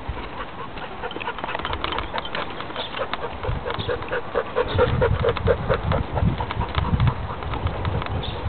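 Puppy whimpering: a quick run of short, high cries about halfway through, over a low rumble.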